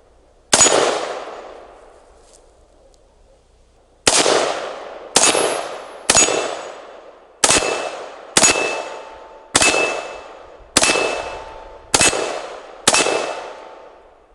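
Core15 AR-15 rifle in 5.56 firing ten aimed semi-automatic shots: one about half a second in, then after a pause nine more at roughly one a second, each with a short echoing tail. A faint ringing tone hangs after several of the later shots.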